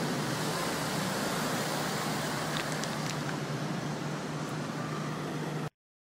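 Street traffic noise on a phone's microphone: a steady hiss with a low hum, which cuts off suddenly near the end.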